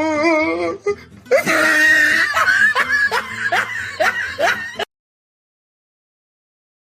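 A person laughing in repeated bursts, then an abrupt cut to dead silence about five seconds in.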